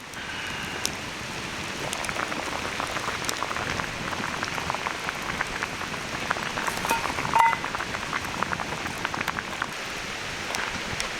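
Cooking over a wood fire: a steady, dense sizzling crackle with many sharp little pops, one of them louder about seven seconds in.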